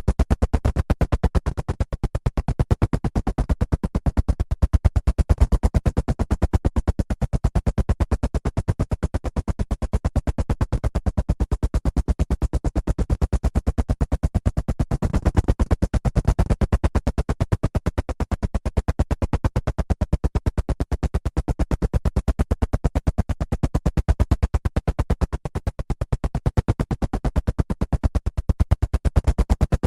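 Helicopter rotor blades chopping in a rapid, steady pulse, swelling slightly around the middle.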